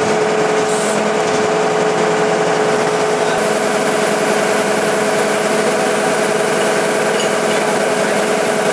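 Horizontal directional drilling rig running steadily: engine noise with a constant high whine.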